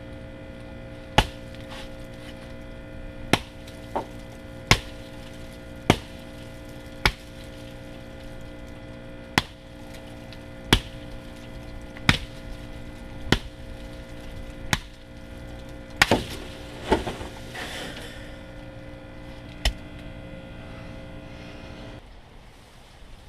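Hatchet chopping into a small tree: about fifteen sharp chops at an uneven pace of roughly one a second, with a splintering crackle of wood partway through. A steady hum runs underneath and cuts off near the end.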